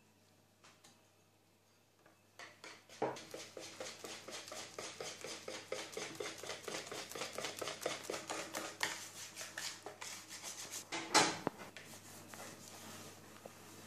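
Wire balloon whisk beating flour into an egg-and-milk batter in a plastic bowl: quick rhythmic strokes scraping and clicking against the bowl, starting about two seconds in, with one louder knock near the end as the whisking stops.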